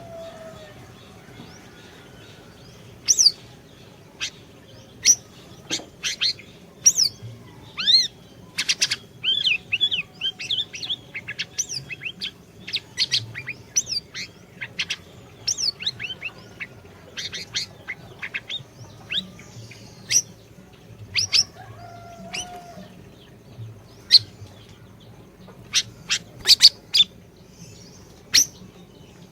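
Siri-siri songbird singing rapid runs of sharp chirps and short sweeping whistles, with brief pauses between runs, over a faint steady hum.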